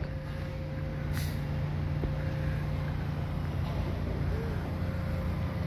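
A motor vehicle engine running steadily with a low hum and a thin steady whine above it, and a short hiss about a second in.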